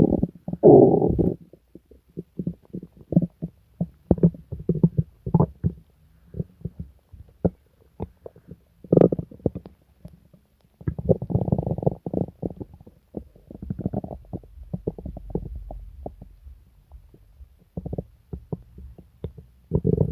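An upset stomach growling and gurgling in irregular bursts of quick pops and bubbling rumbles. Longer gurgles come right at the start, about nine seconds in, and from about eleven to fifteen seconds in.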